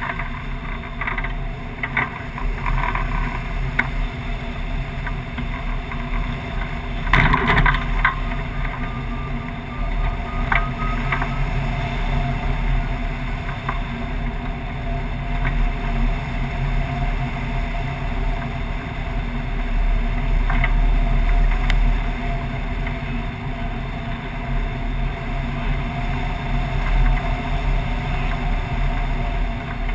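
Steady rush of air over a tandem hang glider in flight, buffeting the wing-mounted camera, with a steady drone underneath and a louder gust about seven seconds in.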